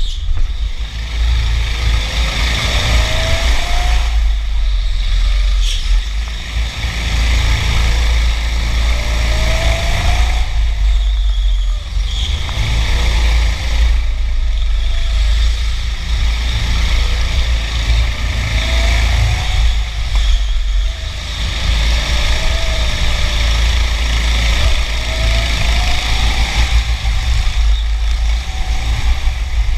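Racing kart driven hard around an indoor track, heard onboard through heavy rumble and wind buffeting; the motor's pitch climbs every several seconds as the kart accelerates out of each corner.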